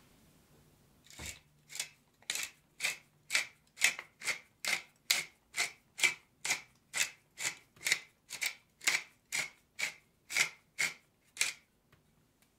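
Hand-twisted pepper mill grinding black peppercorns: about twenty crunchy, rasping grinding strokes, roughly two a second, starting about a second in and stopping shortly before the end.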